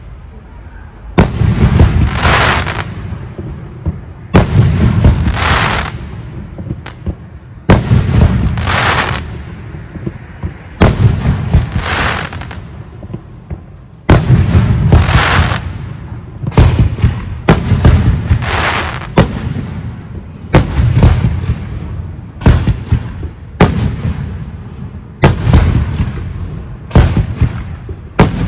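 Professional fireworks display: aerial shells bursting with a sharp bang every two to three seconds, each trailed by about a second of crackling hiss over a continuous low rumble.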